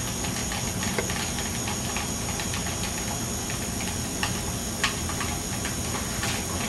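Steady recording hiss with a thin, high, constant whine and a low hum underneath, broken by a few faint light ticks.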